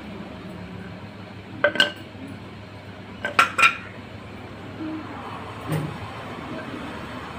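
Hard objects clinking together with a short ringing sound: two clinks close together, then three more a moment later, and a softer knock after them, over a steady low hum.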